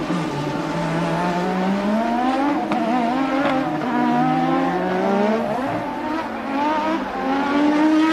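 Formula One race car engines accelerating, each climbing in pitch and dropping back several times as the drivers shift and brake, with more than one car heard at once at times.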